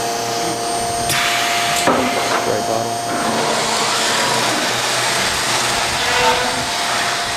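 Weeke Optimat BHC Venture 2.5 CNC woodworking machining center running, with a steady high whine throughout. About a second in a burst of noise starts, a knock follows near two seconds, and from about three seconds a steady rushing noise sets in as the tool cuts the wood.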